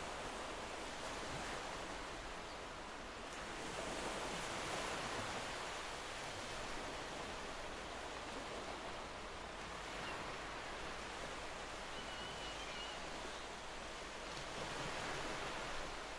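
City ambience: a steady wash of distant noise that swells and fades every few seconds, with a brief faint high chirp about twelve seconds in.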